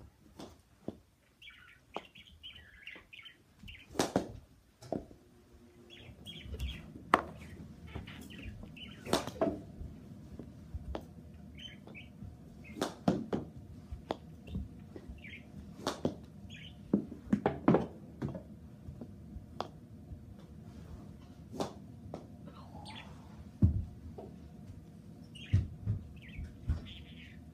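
Pet bird chirping repeatedly, mixed with sharp knocks and taps of a mini hockey stick and ball against the floor and the net. A steady low hum comes on about six seconds in.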